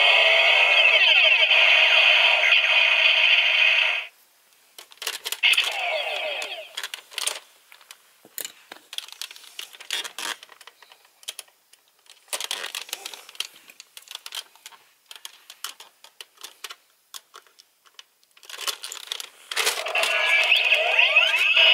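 Tinny electronic sound effects from a Gokai Galleon Buster toy gun's built-in speaker: a loud burst for the first four seconds and another near the end. Shorter bursts and plastic clicks come in between as the toy is handled.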